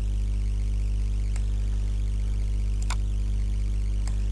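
Steady low electrical hum on the recording, with three short computer-mouse clicks about a second and a half, three and four seconds in.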